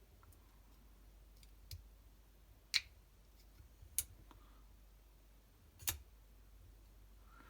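Small folding pocket knife being handled, giving four sharp clicks spaced a second or two apart, typical of the blade being opened and closed.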